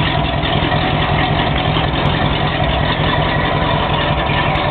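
1971 Jeep Gladiator J2000's engine idling steadily through a dual 2-inch stainless exhaust with Cherry Bomb Turbo mufflers.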